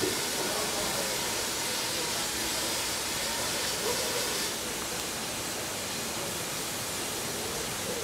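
Steam hissing steadily from the safety valves of a standing Lancashire & Yorkshire 0-6-0 saddle tank locomotive blowing off, with faint voices in the background.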